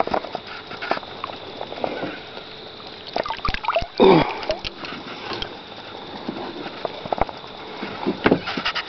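Water splashing and sloshing as a Murray cod is hauled out of the water at the side of a boat, with scattered knocks and clicks as the fish is handled aboard, a cluster of them about 3 to 4 seconds in.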